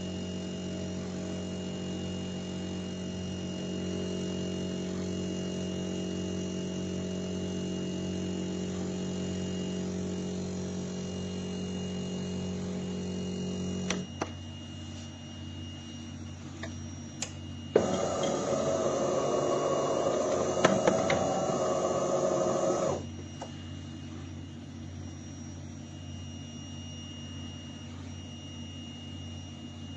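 De'Longhi Magnifica S fully automatic espresso machine running. A steady hum stops with a click about halfway through, and about four seconds later a louder, rougher whirring noise runs for about five seconds and then cuts off, followed by a couple of clicks.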